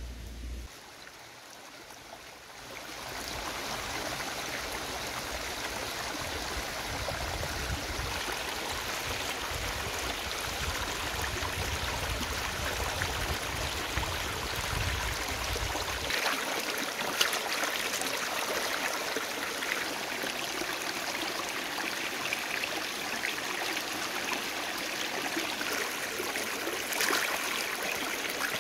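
Shallow stream running over rocks, a steady rush of water that swells in about two seconds in, with a few brief splashes as hands wash skinned frogs in it.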